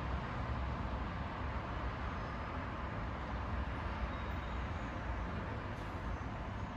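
Steady hum of distant city street traffic from the avenue below, with a deep low rumble underneath.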